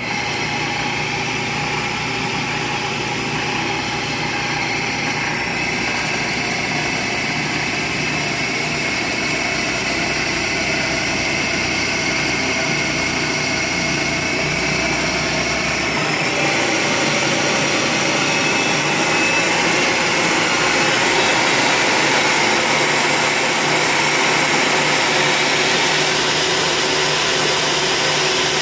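Rockwell Model 20 drill press running on its three-phase electric motor: it switches on at the outset and runs with a steady mechanical whine. The pitch shifts around five seconds in and again around sixteen seconds, then creeps higher, as the variable-speed dial is turned through its speed range.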